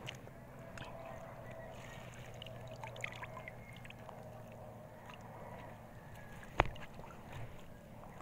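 Lake water splashing and trickling as a caught tilapia is handled at the surface and put into a mesh net bag, over a faint low steady hum. One sharp knock about six and a half seconds in.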